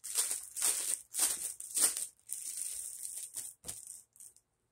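Rustling and crinkling as a printed fabric pillowcase is unfolded and handled, in a string of short bursts with a longer stretch in the middle and a sharp click near the end.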